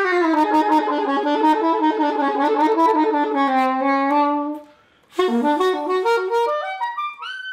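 Solo saxophone playing a long, wavering held note. After a brief break about five seconds in, it plays a quick rising run of notes up to a high note.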